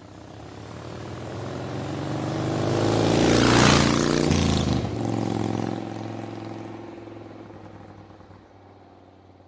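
Vehicle pass-by sound effect on a logo sting: a motor drone with a rushing whoosh that swells to a peak about four seconds in, drops in pitch as it passes, then fades away.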